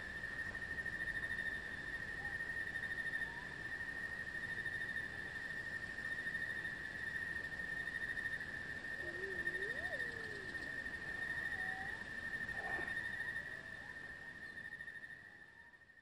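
A steady insect trill at one high pitch, with a few faint whistled bird calls about halfway through; it fades out near the end.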